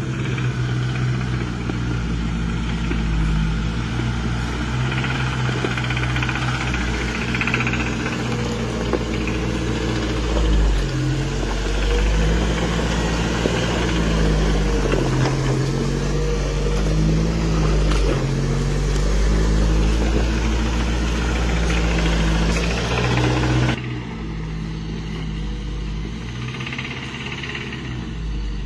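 Lifted straight-axle Toyota trucks' engines running and revving under load as they crawl over a rutted dirt trail, pitch rising and falling with the throttle. The sound drops abruptly near the end.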